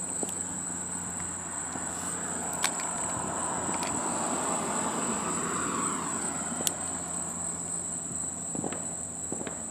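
Outdoor ambience with a steady high-pitched insect drone, and a vehicle passing in the distance that swells about three seconds in and fades away after six; a few light clicks.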